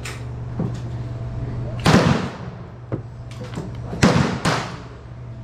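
Gunshots on a shooting range: three loud, sharp reports, one about two seconds in and two close together around four seconds in, each with a short ringing tail.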